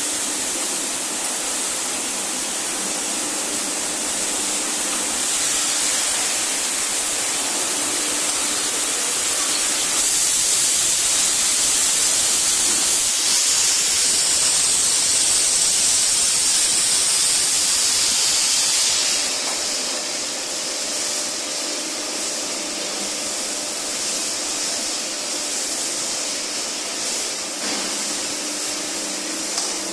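Steady hissing noise from a 1250-ton cold-chamber die casting machine at work, louder for about nine seconds in the middle, then easing off as a faint steady hum comes through.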